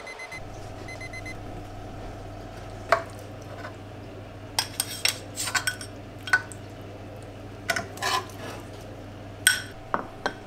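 A kitchen utensil clinking and scraping against a metal baking tray and a bowl as baked sliced potatoes are served out, with a dozen or so short, sharp clinks scattered through, the loudest about three seconds in and near the end. A steady low hum runs underneath.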